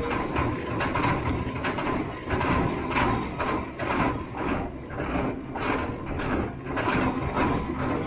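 John Deere tractor's six-cylinder diesel engine firing unevenly on a cold start after a jump from a nearly dead battery. It runs in a rough, pulsing rhythm with rapid knocks.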